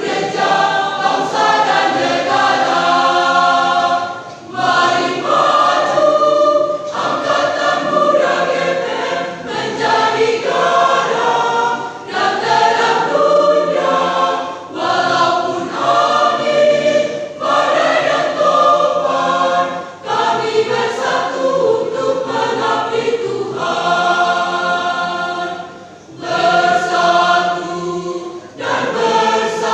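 Church youth choir singing a sacred song, phrase after phrase with short breaks between.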